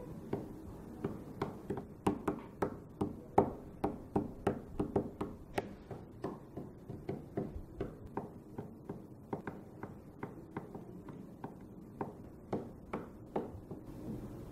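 Fingers tapping and drumming on a tabletop: an irregular run of sharp taps, about two or three a second, some much louder than others.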